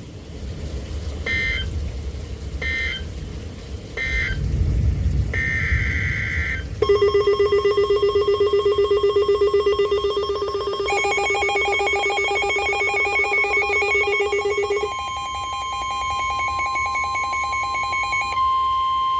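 Emergency Alert System signalling: three short digital data bursts a little over a second apart, then a longer burst. Rapidly pulsing electronic alert tones follow and shift higher partway through. From about fifteen seconds in comes a single steady tone just above 1 kHz, consistent with the weather radio warning alarm tone.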